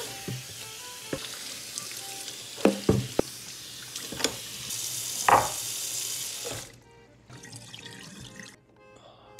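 Kitchen faucet running water over a wooden cutting board in a stainless steel sink, with a few sharp knocks. The water stops about seven seconds in.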